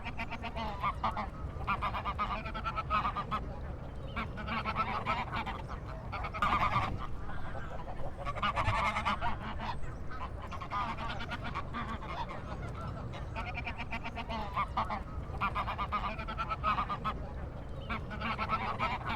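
Duck quacking over and over in bouts of rapid calls, over a steady low rumble.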